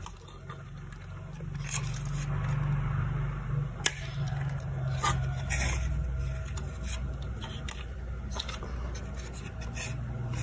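Scraping and light clicks of graphics-card parts being handled as the cooler is fitted back onto the board, with a sharp click about four seconds in, over a low steady hum.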